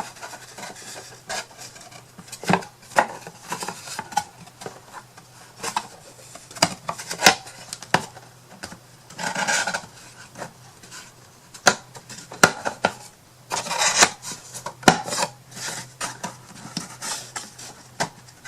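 Thin wooden kit pieces being handled and slotted together: irregular light knocks and clicks, with a couple of brief scraping rubs as the parts slide into place.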